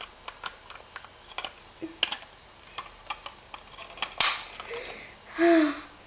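Scattered light clicks and taps of plastic toys being handled on a tabletop, with a short rustle about four seconds in and a brief vocal sound near the end.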